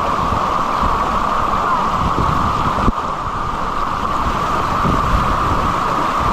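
Creek rapids: water rushing in a steady, loud wash, with wind on the microphone adding an uneven low rumble.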